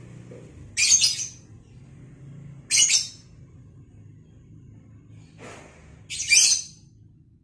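Lovebird giving three short, loud, harsh chirping calls a couple of seconds apart, with a fainter call just before the third.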